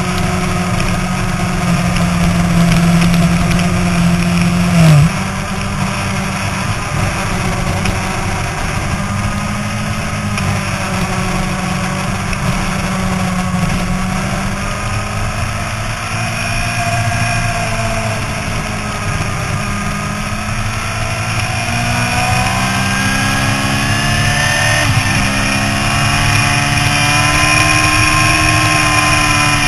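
Yamaha YZF-R6's inline-four engine running hard on track, heard from a camera mounted on the bike, with wind rush over it. The engine note dips suddenly about five seconds in, then climbs through the second half, with a brief dip near the end.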